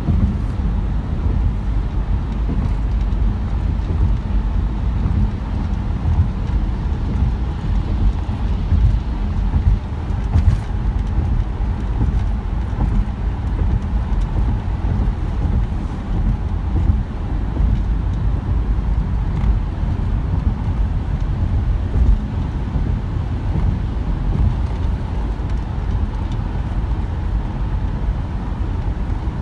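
Steady road noise inside a moving car: a low rumble of engine and tyres on wet pavement, with a faint hiss above it.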